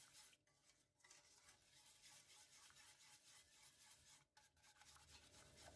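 Faint, quick rubbing and scraping of a wire whisk beating a cocoa-and-milk pudding mixture in a stainless steel pot, whisking it smooth before cooking.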